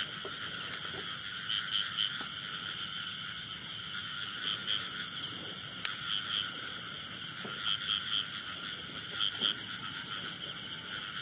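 A chorus of frogs calling steadily, with louder calls standing out in quick groups of two or three every second or two.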